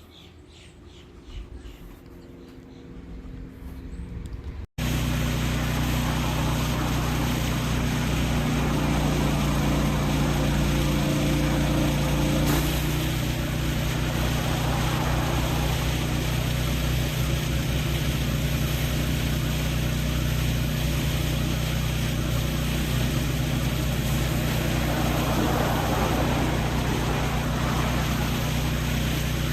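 Gas-engine pressure washer running steadily, its engine hum under the hiss of the high-pressure spray. It cuts in suddenly about five seconds in, after a stretch of faint background.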